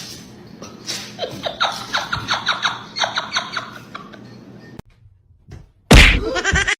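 A fast run of short, high squeaks, about five a second, each rising in pitch. After a pause comes a loud sudden thump near the end, followed by a brief high cry.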